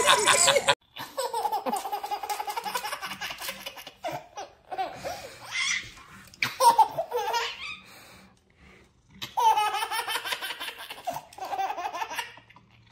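A baby laughing in repeated bursts of giggles and belly laughs, with short pauses between them.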